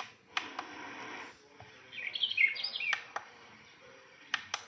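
Birdsong wake-up sound from an A90 sunrise alarm clock's speaker: a short burst of quick bird chirps about two seconds in, after a second of hiss, with a few sharp clicks around it.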